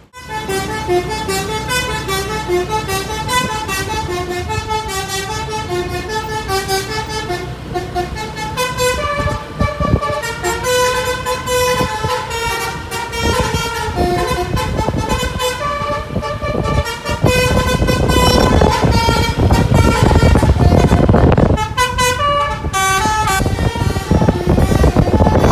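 Basuri "pianika" telolet horn on a bus playing a long, quick tune of short stepped notes. Engine and road noise underneath grow louder about two-thirds of the way through.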